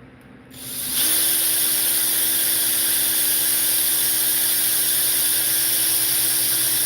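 Small handheld electric power tool that starts up about half a second in and then runs steadily, a hiss with a steady hum.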